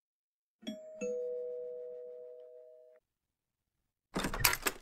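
Two-tone ding-dong doorbell chime, a higher note then a lower one, ringing out and fading over about two seconds. A short, louder clatter follows near the end.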